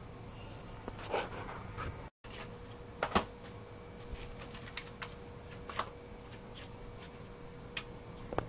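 Scattered light clicks and taps, a few louder than the rest, over a faint steady hum.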